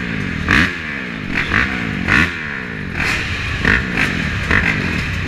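Motocross dirt bike engines revving hard at an arena cross start, heard close from the rider's own bike. The pitch sweeps up and drops again over and over as the bikes launch off the line.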